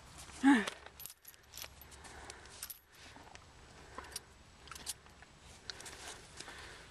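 Metal rings and lead clip on a horse's bridle noseband clinking and jingling in scattered small clicks as the horse moves its head. A brief loud pitched voice-like sound about half a second in is the loudest thing.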